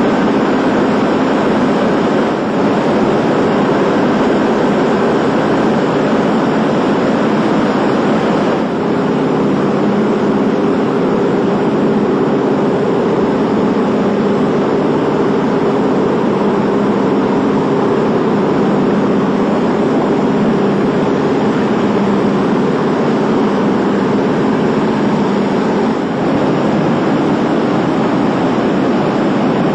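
Radial piston engines of a four-engine World War II bomber droning steadily in flight, a loud, even hum with several held tones; the tone shifts slightly about nine seconds in.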